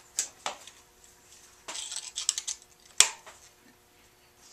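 Small hand tools and a nail handled on a wooden workbench: a few light clicks and taps, a short scratchy rattle near the middle, and one sharp click about three seconds in.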